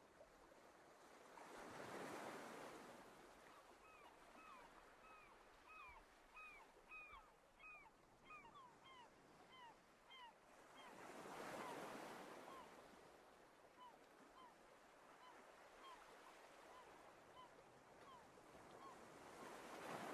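Waves washing ashore in three slow swells, with a bird calling over them in a long series of short repeated notes, about two a second at first, then sparser and fainter toward the end.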